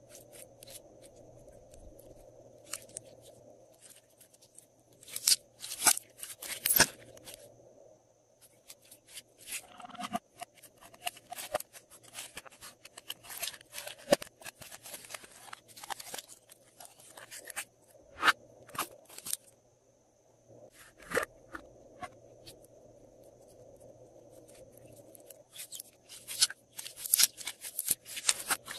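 Glossy slime being squeezed and kneaded by hand, giving sharp crackling and popping clicks in several bursts. In the middle stretch the slime is pressed inside a thin clear plastic cup, which crinkles.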